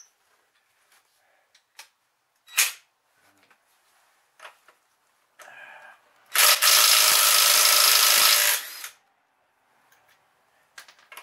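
Cordless impact wrench run in one steady burst of about two seconds past the middle, after a short blip of the trigger earlier, with scattered clicks and knocks of handling tools between.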